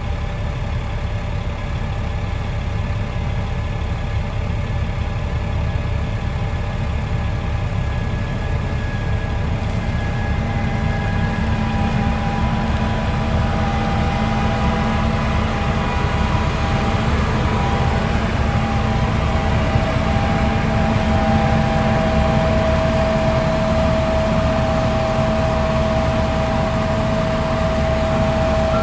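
Farm vehicle's engine running steadily under way: a continuous drone with a faint whine that grows a little louder in the second half.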